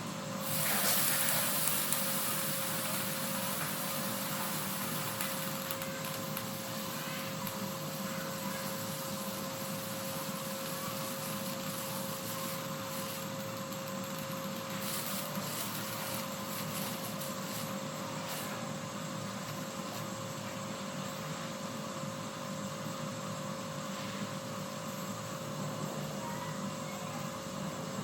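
Water heating in a pot or kettle on the stove, working toward the boil: a steady hiss with a faint steady tone under it, a little louder for a second or two near the start.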